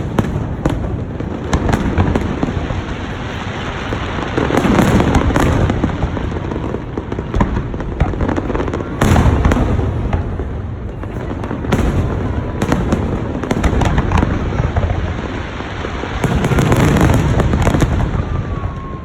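Fireworks display: shells bursting in quick succession with a dense crackle between the bangs, loudest around five, nine and seventeen seconds in.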